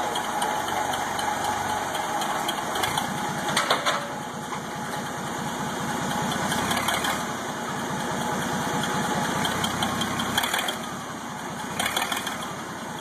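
Forklift engine running steadily under load while the forklift drags a heavy power hammer along a trailer bed by a chain, with a few sharp metallic clanks.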